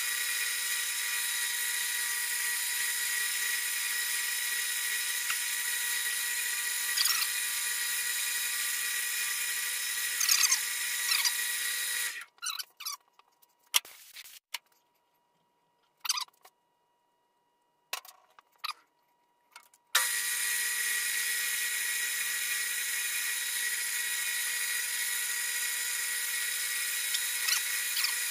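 Metal lathe running with a steady high whine while a threading insert cuts threads on a half-inch rod, with a couple of brief scraping sounds. The lathe stops about twelve seconds in, a few short clicks follow, and it starts up again about eight seconds later.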